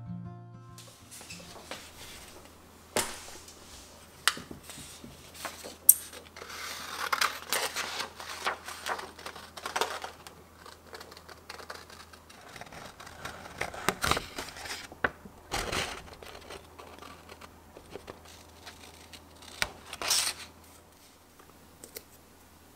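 Scissors cutting a circle out of a sheet of paper: spells of snipping and paper rustling, with a few sharp clicks between.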